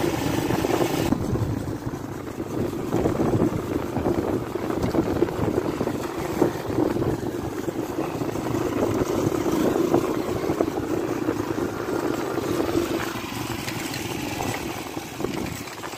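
Motorcycle engine running steadily while riding, heard from the rider's own seat, easing off a little near the end.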